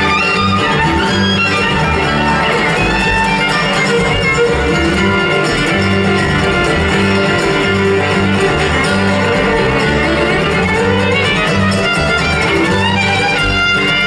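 Live country band playing an instrumental passage, with a fiddle to the fore over a moving bass line.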